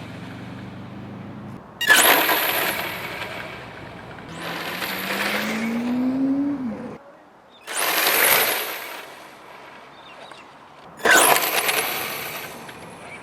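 Brushless electric RC car (HPI Sprint 2 Flux) running fast on a hard court: three sudden loud bursts of motor and tyre noise, each fading over about a second, with a rising whine between the first two.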